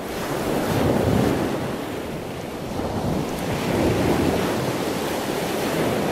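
Ocean surf: waves washing in as a steady rushing noise that swells about a second in and again about four seconds in.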